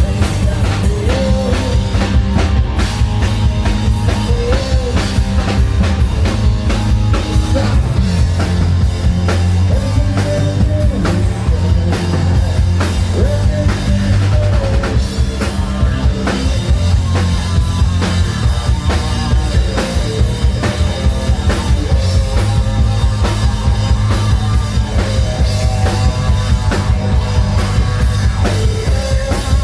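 Live melodic hard rock band playing: a driving drum kit with heavy bass drum, bass and guitars, and a melodic line weaving over the top.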